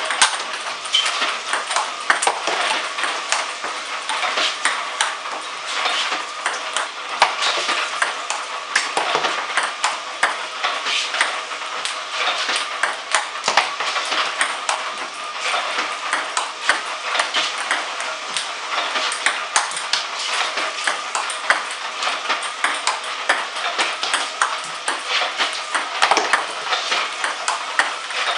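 Table tennis balls clicking in fast succession: an iPong Master V300 robot feeding balls that bounce on the table and are struck back with backhand strokes, several clicks a second. A faint steady hum runs underneath.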